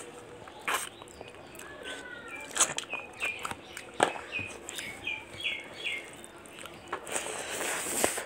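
Chewing, with sharp mouth clicks and smacks. A bird chirps a quick run of short, repeated high notes in the background mid-way. Near the end there is about a second of rustling.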